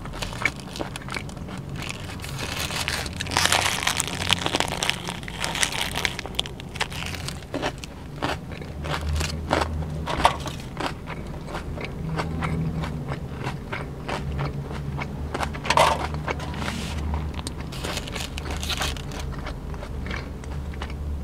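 Close-miked chewing and biting of a nori-wrapped sushi burrito with crunchy vegetables such as bean sprouts: wet mouth clicks and crunches, with a few louder bites. A steady low hum runs underneath.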